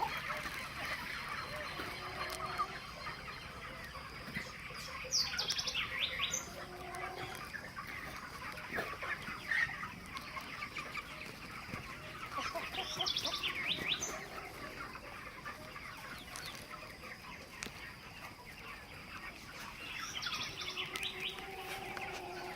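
A flock of broiler chickens clucking and calling over a steady background noise. Short bursts of high-pitched calls come about five, thirteen and twenty-one seconds in.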